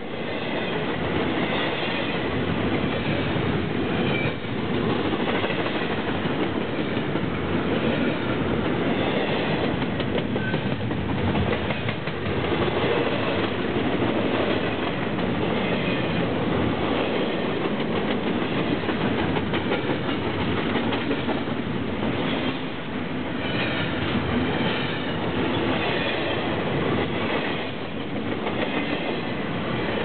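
Double-stack intermodal well cars of a freight train rolling steadily past at speed: a continuous rumble of steel wheels on rail, laced with fast clicking.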